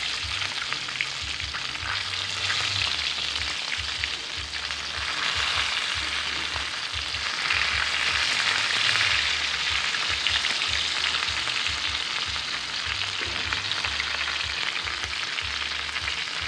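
Chicken wings sizzling as they fry in hot oil in a wok, with a metal spatula stirring and turning them. The sizzle swells louder about halfway through.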